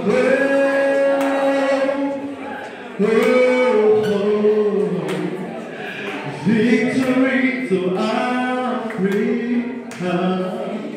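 A man singing unaccompanied, in long held notes that slide from one pitch to the next, in three phrases.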